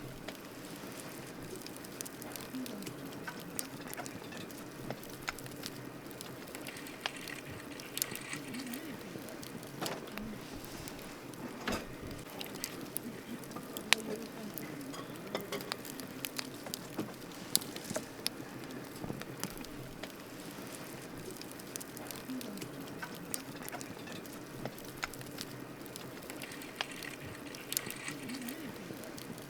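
Wood campfire burning: a steady hiss with frequent irregular crackles and sharp pops, the loudest pop about fourteen seconds in.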